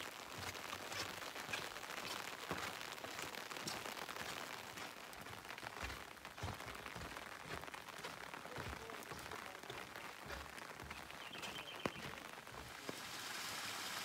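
Rain falling on an umbrella: many separate drop taps over a steady hiss, with one sharper click near the end. In the last second or so a steadier, even rushing noise takes over.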